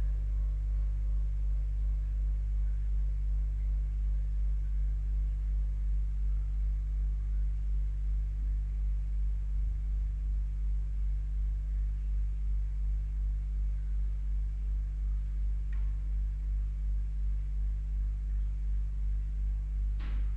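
Pump running with a steady low hum that pulses slightly and regularly, over water draining in a pipe. Two faint clicks come near the end.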